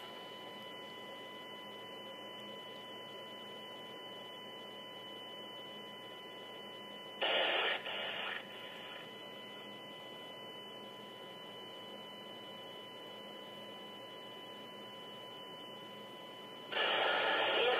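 Live police scanner audio stream played through a computer speaker: a steady hiss with a high whine between transmissions, a short burst of radio noise about seven seconds in, and radio voice traffic breaking in near the end.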